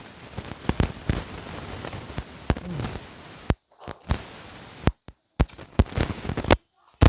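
Microphone crackling and popping from a loose connection: a hissy bed broken by sharp clicks, then several brief cut-outs to dead silence in the second half.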